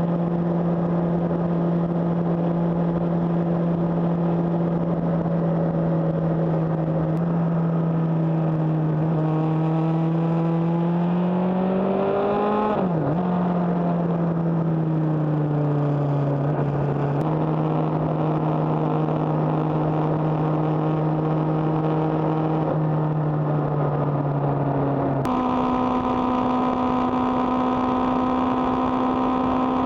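Suzuki GSX-R600's inline-four engine running at a steady cruise, heard with wind rush from an onboard camera. About halfway through, the engine note climbs and then drops back. Three times the pitch jumps suddenly to a new steady note.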